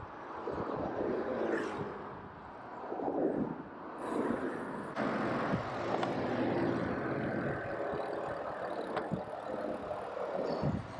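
Cars passing a moving bicycle, each swelling and fading away, with wind rushing over the microphone.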